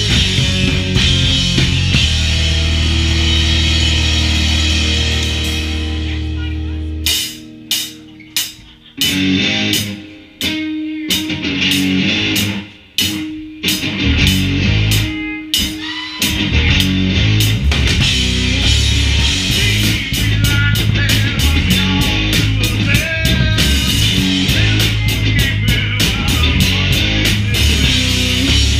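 Live rock band playing: drum kit and guitar. About seven seconds in the band drops to a sparse break of separate drum hits and held guitar notes, then the full band comes back in around sixteen seconds, with fast drumming from about twenty seconds.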